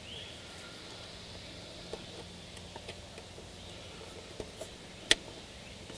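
Small metal clicks of the throttle cable end being worked back onto the carburetor throttle linkage of a Yamaha 40 hp two-stroke outboard, with one sharp click about five seconds in, over a faint steady hum.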